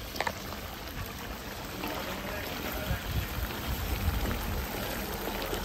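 Meat curry bubbling and simmering in a wok over a gas burner as its liquid is cooked down. A single sharp knock comes about a quarter second in, and a low rumble runs through the middle.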